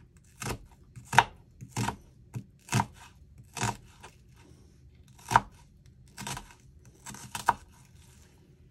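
A knife slicing onion lengthwise on a cutting board: about ten separate cuts, roughly one a second, with a short pause midway.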